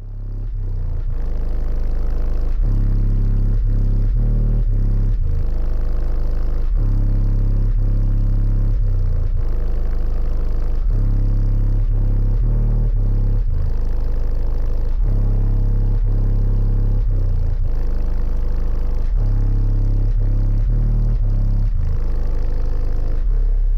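Car-audio system of eight Otis Designs 15-inch subwoofers on four SounDigital 8K amplifiers playing a bass-heavy demo track loudly, heard from inside the van's cabin. Deep bass notes step from one pitch to another every second or so.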